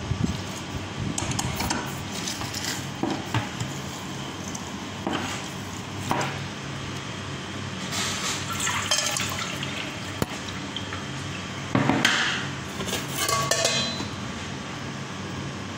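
Metal kitchenware clinking and knocking as an aluminium lever fruit press and metal bowls are handled, with lime juice pouring from the press into a perforated metal strainer in stretches during the second half.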